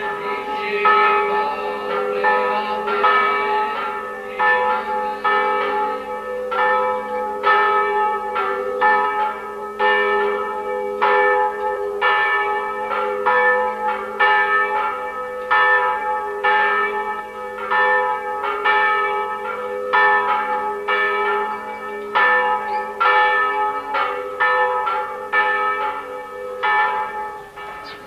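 Church bells ringing a peal: several bells struck in quick, irregular succession, about twice a second, over their long-held hum. The ringing stops just before the end.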